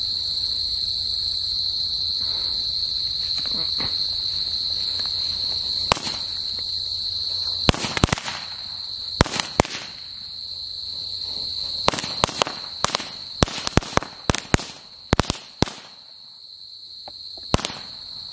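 A magic whip firecracker lying on the ground going off in an irregular string of sharp cracks, starting about six seconds in and coming in scattered clusters with short pauses. Crickets chirp steadily throughout.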